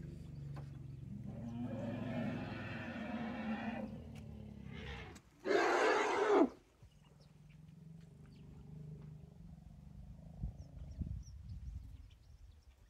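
African elephants at a waterhole calling: low, growling rumbles, then a loud, harsh call lasting about a second, about five and a half seconds in, followed by quieter rumbling.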